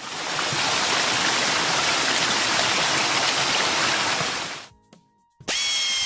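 Sound effect of car-wash water jets spraying: a steady, even hiss that cuts off after about four and a half seconds. A moment later a short, bright ringing tone begins near the end.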